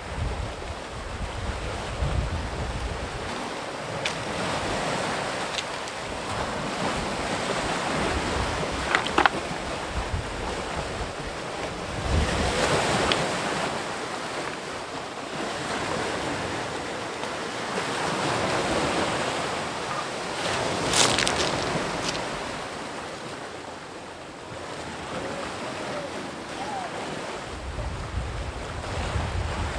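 Sea waves breaking and washing in, swelling and falling every few seconds, with a sharper crash twice. Wind buffets the microphone with a low rumble at the start and again near the end.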